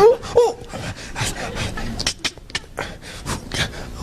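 Vocal sound effects made by a man into a microphone: a short pitched vocal sound, then a run of breathy, panting-like noises and mouth clicks.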